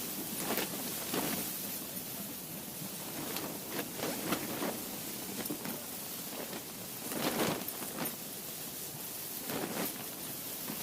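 A steady hiss with irregular rustles and soft patter, the loudest ones about a second in, near the middle, and about seven seconds in.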